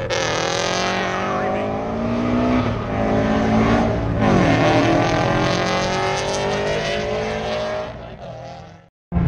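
A car engine revving: its pitch slides down for the first few seconds, then dips sharply and climbs steadily again from about four seconds in, before fading away near the end.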